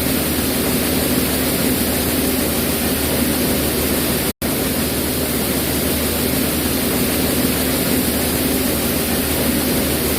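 Brown rice grains pouring in a continuous stream in a rice mill: a dense, steady hiss of falling grain over the steady hum of the milling machinery. The sound cuts out for an instant about four seconds in.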